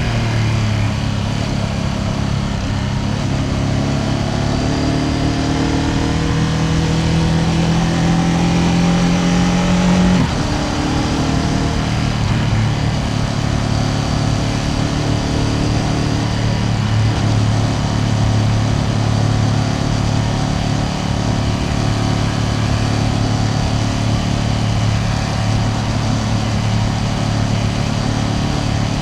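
Ducati Panigale V2S's V-twin engine pulling with a steadily rising note for about ten seconds, then dropping abruptly in pitch at a gear change and running on at an even, lower note.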